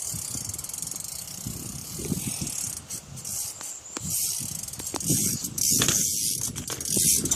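BMX bike being ridden: the rear hub's freewheel ratchet ticking as it coasts, over the rumble of the tyres rolling, with a few sharp knocks.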